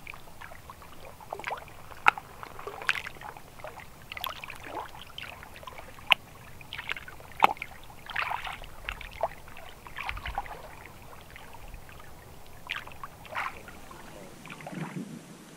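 Water lapping and splashing in short, irregular slaps.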